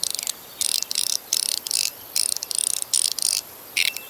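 42cosmo mechanical fidget slider clicking as it is slid back and forth, in quick repeated bursts of rapid clicks.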